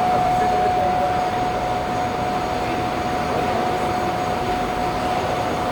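Metal lathe running: a steady mechanical noise with a single high whine held through it.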